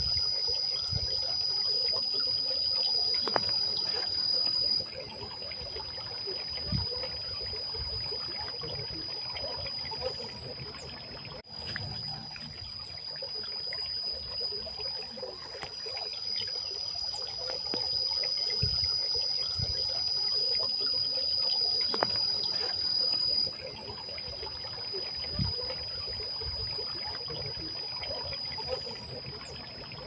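Water trickling and splashing down the tiers of a stone garden fountain into its basins, a steady even flow. A steady high-pitched whine runs over it.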